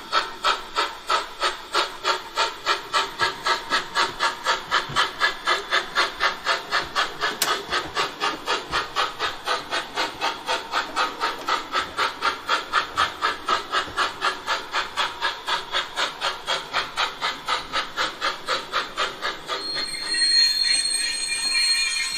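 Steam chuffing from a Gauge 1 model of a Prussian T3 tank locomotive's ESU LokSound 5 sound decoder as it runs, an even beat of about three chuffs a second. About two seconds before the end the chuffing stops and a steady high-pitched tone with hiss takes over.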